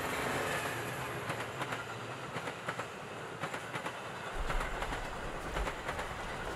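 A train passing on the tracks: a steady rush of noise with many quick, irregular clacks from the wheels on the rails, and a deep rumble coming in about two-thirds of the way through.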